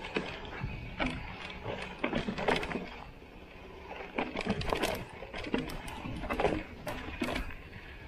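Mountain bike clattering down a rocky trail: tyres crunching over loose stones, with irregular sharp knocks and rattles from the bike and a steady low rumble.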